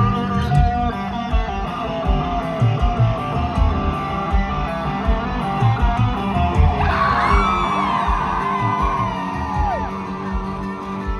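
Live country band playing an instrumental break: electric guitar over bass and a steady drum beat, with a high bending, sliding note from about seven seconds in.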